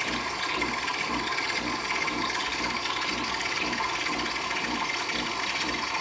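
Gourmia automatic espresso machine running its milk-frothing cycle for a latte: a steady mechanical pump sound with a faint repeating rattle while frothed milk fills the mug.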